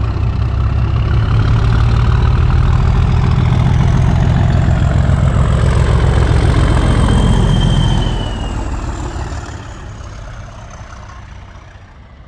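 Class 37 diesel locomotive's English Electric V12 engine working hard as the train pulls away, with a thin high whine over it. The engine is loud for about eight seconds, then fades as it draws off.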